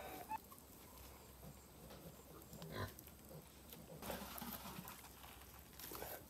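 Quiet outdoor background with a few faint, scattered animal grunts.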